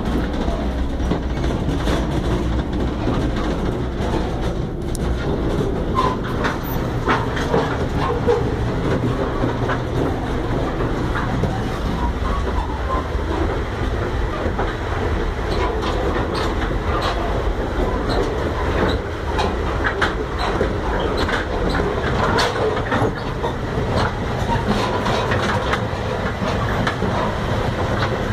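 Chepe passenger train car running on the rails: a steady rumble with frequent rattling and clacking of the wheels and car fittings, heard from the vestibule by an open door.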